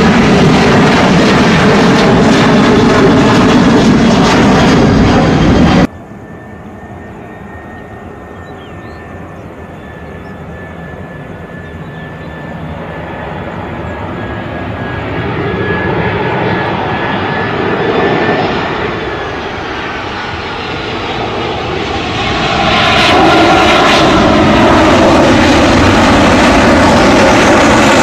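Jet airliner engines at takeoff power, loud at first, then cut off abruptly about six seconds in. A fainter jet follows, with a high steady whine that grows slowly louder, and the loud engine noise returns near the end.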